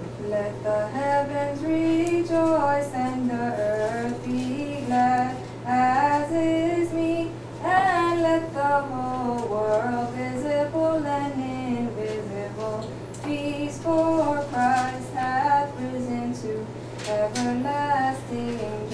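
Female voice chanting an Orthodox Paschal hymn, one melodic line stepping and gliding in pitch, over a steady low hum.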